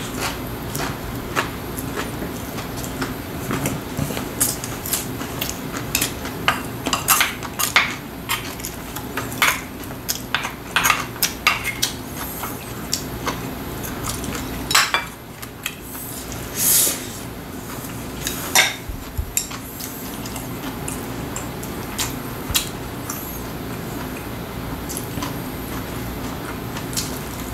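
Wooden chopsticks and a metal spoon tapping and clinking against ceramic bowls and dishes during a meal. The clinks come at irregular moments, thickest through the first half and sparser towards the end.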